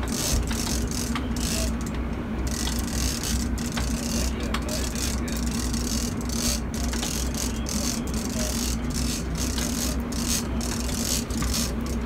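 Big-game trolling reel being cranked hard, its gears ratcheting in repeated bursts as line is wound in against a hooked wahoo, over the steady low drone of the boat's engine.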